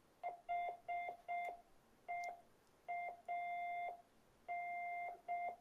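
Morse code beacon from an SA818-based VHF fox-hunt transmitter, heard through a receiver's speaker: one mid-pitched tone keyed on and off in short and long beeps, sending the beacon text and call sign.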